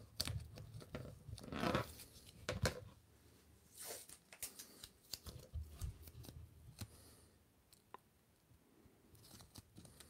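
Blue painter's tape being torn, crinkled and pressed around a small plastic action figure: faint, irregular rips and crackles, the loudest about two seconds in.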